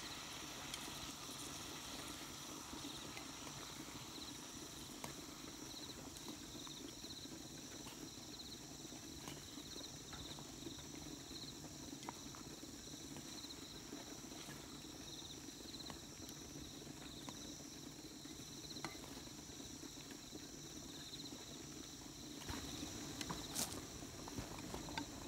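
Crickets chirping in a steady, pulsing high trill over a low steady hum. Scattered light clicks of a wooden spatula and chopsticks against a cooking pot and plate, with a few sharper clicks near the end.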